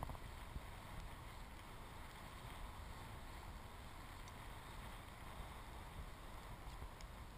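Faint, steady wind rumbling on the microphone.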